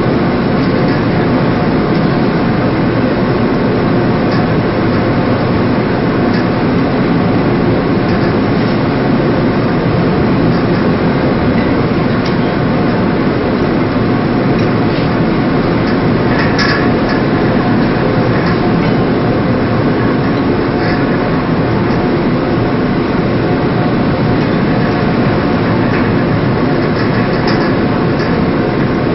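Steady loud drone of a ship's engines and deck machinery, unbroken throughout, with a few short faint knocks on top, the clearest about halfway through.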